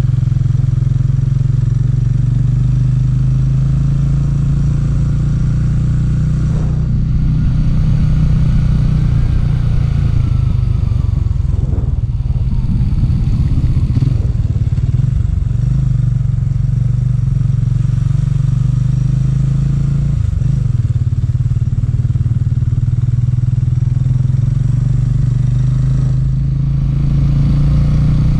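Motorcycle engine running steadily while riding, heard from on the bike, its note dipping and wavering briefly a few times.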